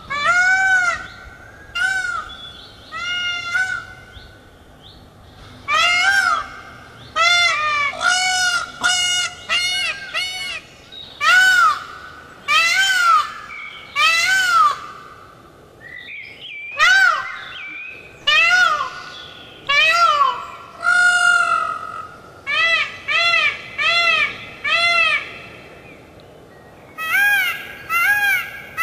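Indian peafowl (peacock) calling: a long series of loud calls, each rising and then falling in pitch, given in quick runs of several with short pauses between the runs.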